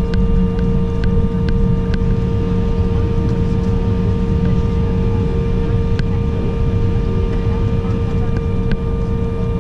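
Steady cabin noise of an Embraer 195 jet airliner moving slowly on the ground: a low rumble with a constant hum tone from its CF34 turbofan engines. A few faint clicks can be heard.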